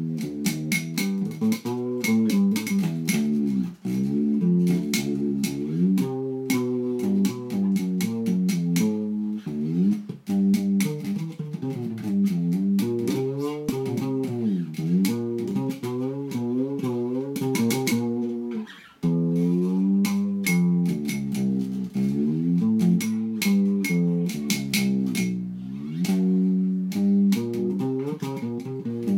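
Homemade fretless electric bass, with a frying-pan body, a chromed metal rod for a neck and a P-bass pickup, played fingerstyle: a run of plucked notes that often slide up and down in pitch, with sharp string clicks on many of the plucks. The playing breaks off briefly three times, near 4, 10 and 19 seconds in.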